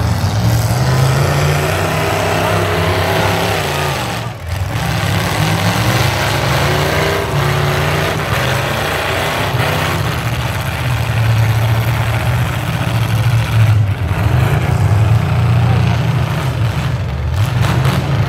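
Demolition-derby pickup truck engines running loud and revving in the arena.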